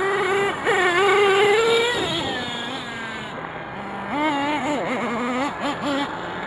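HPI Savage X 4.6 nitro RC monster truck's small two-stroke nitro engine revving as it drives: a high pitch that climbs and holds for a couple of seconds, then eases off, followed by a run of quick throttle blips near the end.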